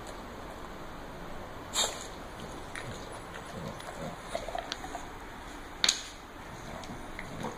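English bulldog snuffling and sniffing at a dried chew on a tile floor, with two sharp clicks, one about two seconds in and one near six seconds, and a few lighter ticks between them.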